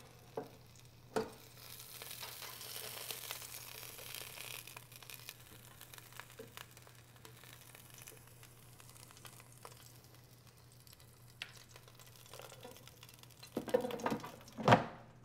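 Hot chicken tenders sizzling in a pulled-out air fryer basket while they are turned over with tongs, with light clicks of the tongs against the basket. The sizzle is strongest in the first few seconds and fades; a louder knock comes near the end.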